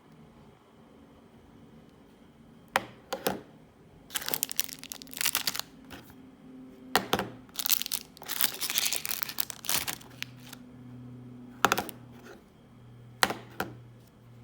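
Packaging being handled: plastic or paper wrapping crinkling in two longer stretches, with several sharp clicks before and after.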